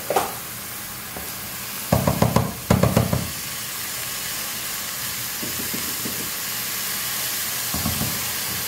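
Washed rice frying in hot oil with sautéed garlic and onion, sizzling steadily in a pot, while a spoon stirs it and knocks against the pot, loudest in a quick run of strokes about two seconds in. The rice is being toasted in the oil before the hot water goes in.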